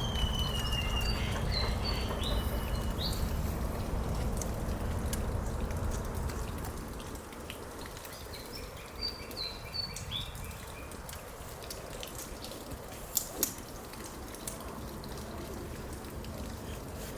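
Streak-eared bulbuls chirping: short high calls in two clusters, one near the start and another about nine seconds in, over a steady outdoor background hiss with a few faint ticks.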